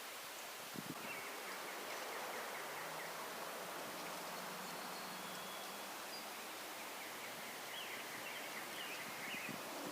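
Outdoor nature ambience: a steady rushing hiss with trains of faint high chirps about a second in and again near the end. A faint low drone runs through the middle.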